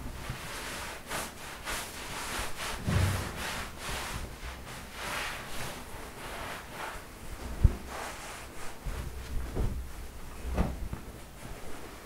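Towel rubbing and patting on wet skin while drying off after a shower: a run of soft rustling strokes with dull thuds, and one sharp knock a little past halfway.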